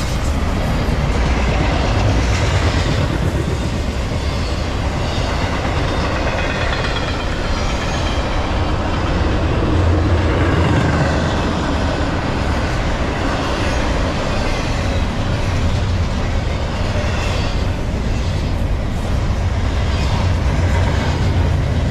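Double-stack intermodal freight train's well cars rolling past at close range: a steady, loud rumble of steel wheels on the rails with some clicking from the wheels.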